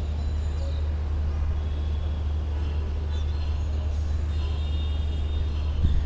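City street traffic ambience: a steady low rumble of vehicles, with faint high tones above it and a short thump near the end.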